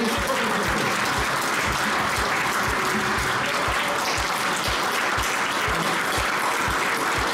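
A large audience applauding steadily, with a steady low beat of music playing underneath, about three beats a second.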